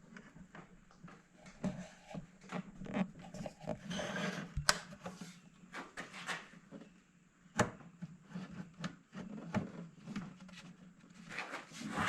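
A plywood drawer being handled on its slides: scattered knocks and rubbing, with two sharp clicks about five and eight seconds in. A low steady hum runs underneath.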